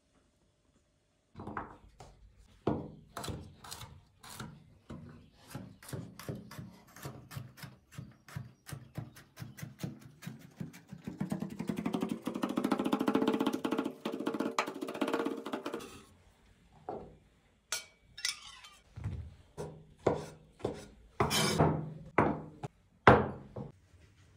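Kitchen prep knocks on a wooden board, irregular and many in a row, with a steady pitched hum for about five seconds midway that stops abruptly.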